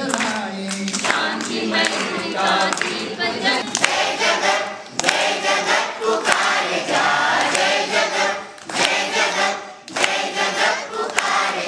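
A large group of schoolchildren singing together in chorus, in phrases with short breaks between them.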